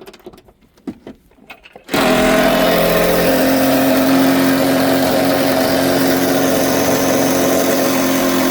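A few light clicks and taps, then about two seconds in a power tool with a 14 mm socket starts up and runs loudly and steadily, driving a seat mounting bolt.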